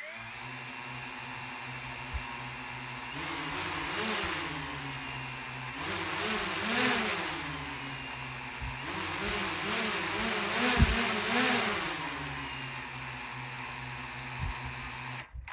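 DJI Mini 4K drone's motors and propellers running with a steady buzzing whine. The pitch rises and falls repeatedly in the middle as the throttle changes, then the motors stop abruptly at the end.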